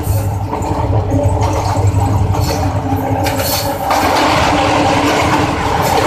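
Diesel locomotive engine running steadily, heard from inside the cab, over wheel-on-rail noise. About four seconds in the sound turns brighter and louder as the locomotive enters a tunnel and the noise is thrown back off the tunnel walls.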